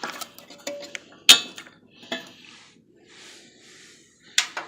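Metal clinking and knocking as a bolt and a replacement starter are handled against a Briggs and Stratton opposed-twin engine: a sharp clank about a second in and another near the end, with light rustling in between.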